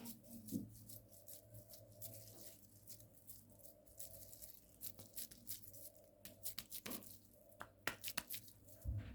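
Kitchen handling sounds during food preparation: a string of short rustles, ticks and light taps, busier in the second half, over a faint steady hum.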